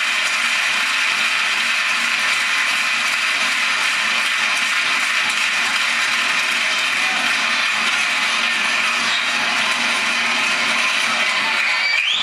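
Loud, steady din of a packed basketball hall's crowd during live play, with a short rising squeak near the end.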